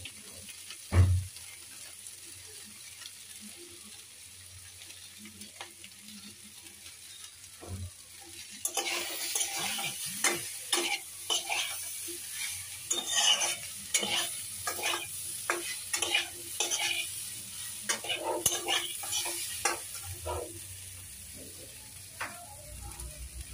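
Cut vegetables frying with a steady sizzle in a pan, stirred and scraped with a wooden spatula to mix in the just-added spices, the stirring strokes coming thick and fast from about eight seconds in to about twenty. A dull thump about a second in.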